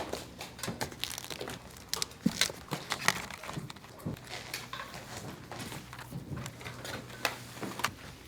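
Irregular clicks, taps and crinkling from hands handling plastic lunch-box containers and packaging, over a low steady machine hum.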